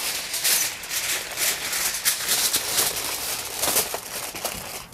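Aluminium foil crinkling and crackling as gloved hands fold it tight around a piece of meat and then press a fresh sheet flat, a dense run of crisp rustles.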